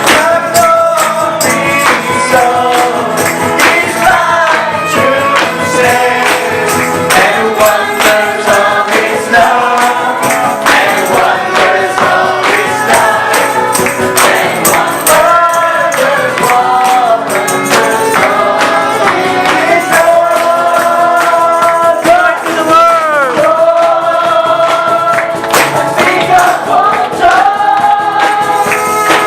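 Church choir singing with tambourine accompaniment.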